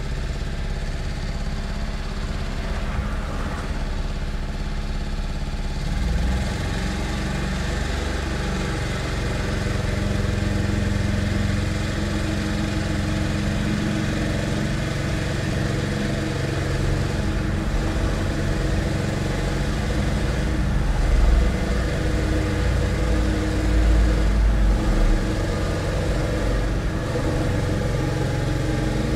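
Construction noise: a machine's engine running steadily with a low, even hum, swelling louder briefly a few times in the second half.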